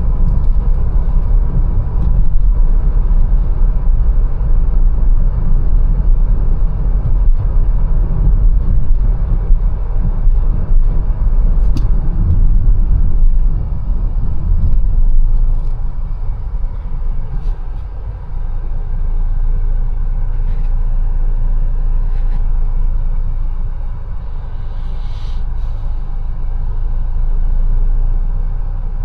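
Mercedes-Benz A180 driving, with a steady low rumble of engine and road that eases off for a few seconds about halfway through and again near the end, and a few faint clicks.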